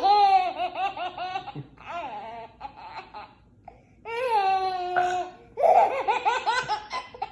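A baby laughing in bouts of high-pitched, pulsing giggles, with a short lull a little past the middle.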